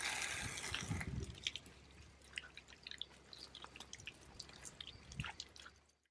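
A wooden pole punching the cap of grape skins down into fermenting grape must: wet squelching and sloshing as it plunges, with small scattered pops and drips from the fermentation.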